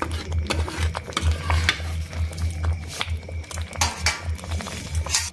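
A metal spatula scraping and clinking over and over against a metal kadai as thick daliya khichuri is stirred, over a low steady hum.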